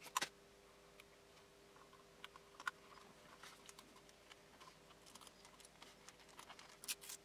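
Handling of a Logitech G700 wireless mouse's plastic body: a few sharp plastic clicks and taps, the loudest about a quarter second in, another near three seconds and a pair near the end, with light rustling over a faint steady hum.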